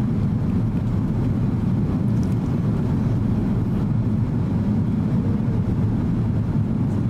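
Steady low drone of cabin noise inside an Airbus A330-300 in flight, engine and airflow noise heard from a window seat beside the wing, even in level throughout.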